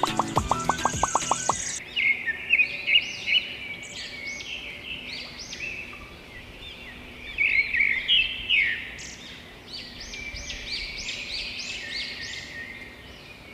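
Music stops about a second in. After that, birds chirp and twitter in many short, high calls, some in quick runs, until the end.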